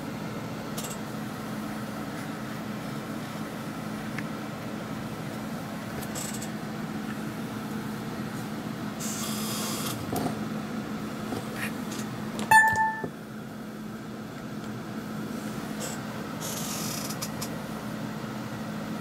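Steady low electrical hum, with two brief bursts of hiss and, about twelve and a half seconds in, a click followed by a short electronic beep.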